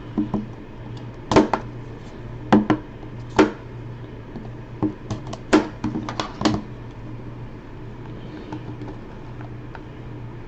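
A trading-card box being handled and opened by hand: a series of sharp clicks and taps in the first several seconds, then quieter handling, over a steady low hum.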